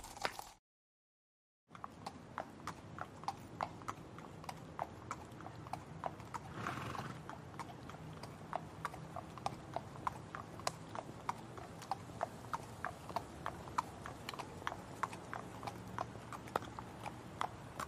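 Horse hooves clip-clopping on hard ground at a steady walking pace, about three hoofbeats a second, starting after a brief silence near the beginning. A short breathy noise rises over the hoofbeats about seven seconds in.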